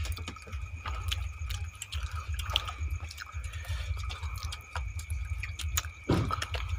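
Small scattered clicks and taps of people eating chicken with their hands and picking at the bones, over a steady low hum and a faint, steady high tone.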